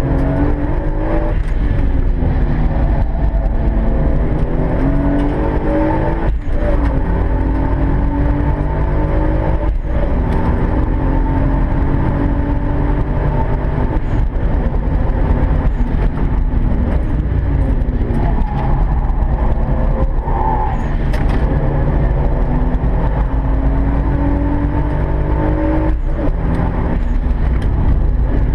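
1995 Toyota Supra's twin-turbo 2JZ-GTE straight-six, boosted to 19 psi, heard from inside the cabin under hard acceleration: the revs climb and cut off sharply at each gear change, several times. About halfway through they fall away as the car slows, then climb again.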